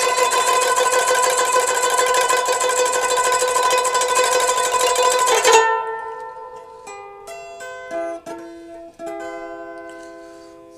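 Plucked string instrument music: a dense, loud texture of sustained notes that breaks off suddenly about halfway through, then quieter single plucked notes that ring and die away, with a couple of sharp clicks among them.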